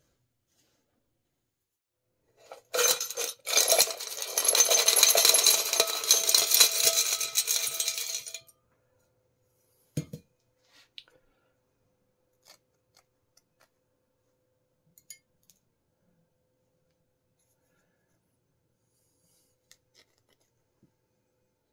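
Small steel bicycle parts (bolts, headset cups, brackets), fresh from a rust-remover soak, clattering and clinking out of a steel cup for about six seconds. Afterwards come scattered single clinks as the parts are handled.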